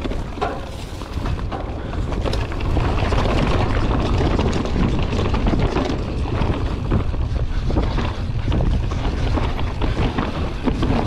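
Wind buffeting the microphone of a chest-mounted camera on a mountain bike descending at speed, over the rush of tyres on a dry dirt trail and scattered knocks and rattles from the bike. It gets louder about two seconds in.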